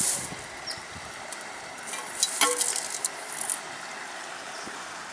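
Steady hiss of a flowing river. Dry grass rustles as it is handled at the start, and there are a few brief crackles about two seconds in.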